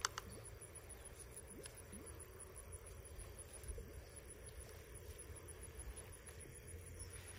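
Quiet outdoor ambience: a faint high insect chirp repeating about four times a second over a low wind rumble, with a sharp click right at the start and a few faint ticks.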